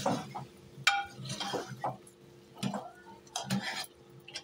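Metal ladle stirring and scraping chunks of meat in a masala inside a metal pressure-cooker pot. It clinks against the pot several times, most sharply about a second in.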